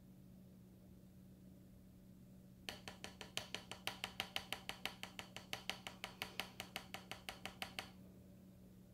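A plastic applicator scraping out a small cosmetic jar, making a quick, even run of light clicks about six a second. The clicks start about three seconds in and stop shortly before the end, as the last of the cream is scraped out.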